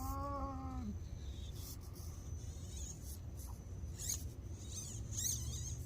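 Axial SCX24 mini RC crawler working over rock: a brief rising-and-falling motor whine, then two scratchy scrabbles of tyres and chassis on rock near the end, over a steady low rumble.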